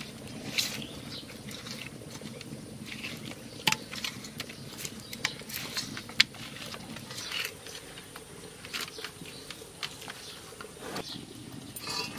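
Wet squishing and irregular sticky clicks of hands rubbing spice paste into whole climbing perch in a steel bowl.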